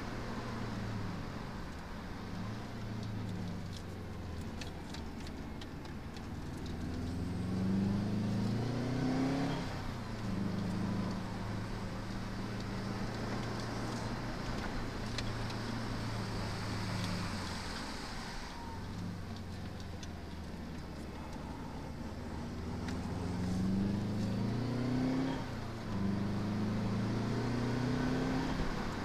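The turbocharged flat-four engine of a 1998 Subaru Impreza WRX STi, heard from inside the cabin under way, over steady road noise. Twice the revs climb for a couple of seconds and then fall away abruptly, about a third of the way in and again near the end.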